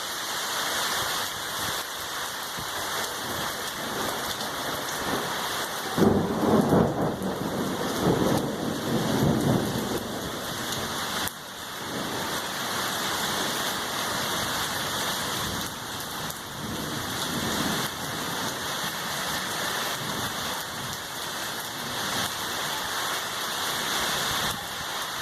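Heavy rain falling steadily, with a rumble of thunder starting about six seconds in and lasting several seconds.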